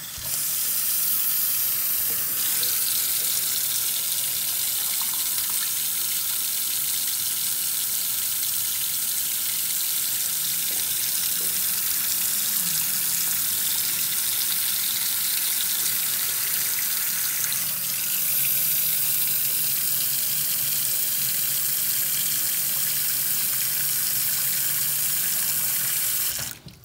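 Cold water running steadily from a kitchen faucet into a stainless steel sink, the stream splashing into water pooling over a clogged drain that will not take it. The tap is shut off suddenly near the end.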